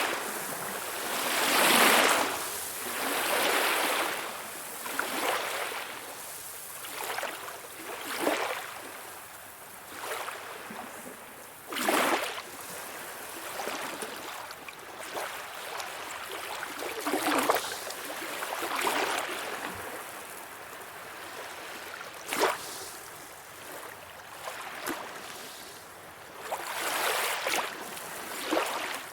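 Calm sea waves washing in, in gentle swells that rise and fall every second or two, with now and then a sharper splash.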